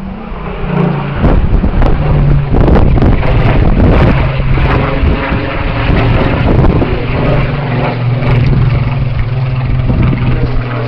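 Spitfire PR Mk XIX's Rolls-Royce Griffon V12 engine droning as the fighter flies past overhead, its pitch dropping partway through. Wind buffets the microphone throughout.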